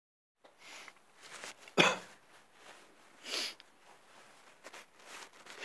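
A man's breathy build-up to a sneeze: a series of short sharp breaths and sniffs. The loudest is a sudden sharp breath about two seconds in.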